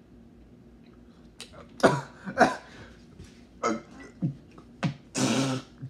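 A man gagging and retching over a paper plate after eating a barf-flavoured Bean Boozled jelly bean: a run of about five short gags starting about two seconds in, then a longer voiced retch near the end.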